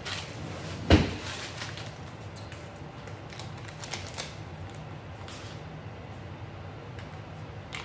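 Kitchen handling noises: one sharp knock about a second in, then scattered light clicks and rustling as items are picked up and set down on the counter, over a low steady hum.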